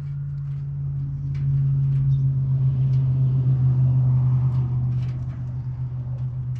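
A steady low mechanical hum from an engine or motor running, growing louder about a second and a half in and easing off near the end.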